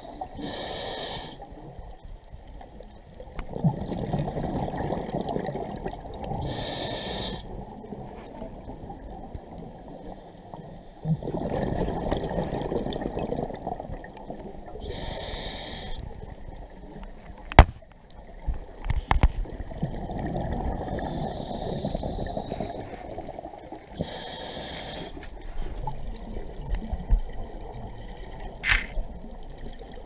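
Scuba diver breathing through a regulator underwater: short hissing inhalations alternating with several seconds of bubbling exhalation, about every eight seconds. A few sharp clicks a little past the middle.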